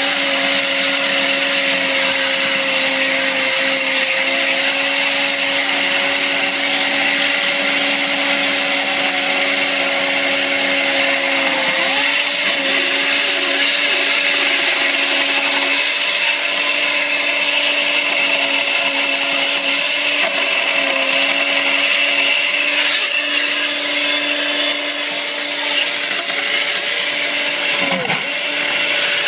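Hydraulic chainsaw running steadily through concrete: a continuous whine with a grinding hiss. The pitch sags sharply for a moment near the end, as the chain is loaded.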